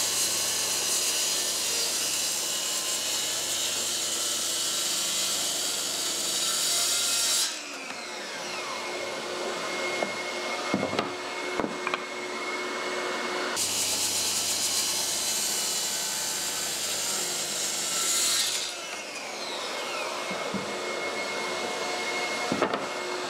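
Bosch GKT 55 GCE track saw cutting through 2-inch maple twice, each cut lasting about five to six seconds and ending in a falling whine as the blade spins down; it is a tough cut that strains the saw. Between the cuts a dust extractor runs steadily, with a few knocks as the rail and board are moved.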